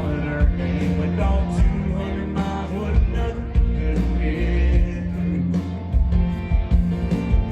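Live country-rock band playing loud, with heavy bass and drums, electric guitar and a singer's voice.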